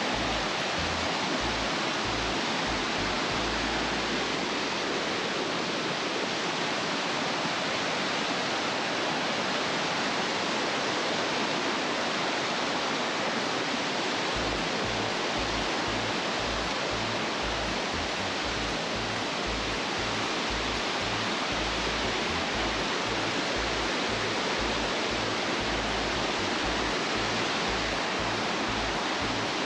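Steady rush of a stream flowing over rocks, an even hiss with no change in level.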